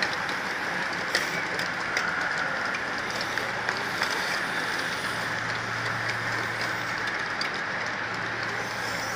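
A large bunch of road racing bicycles rolling past close by: a steady whir of tyres and drivetrains with scattered sharp clicks. A low steady hum joins about three seconds in.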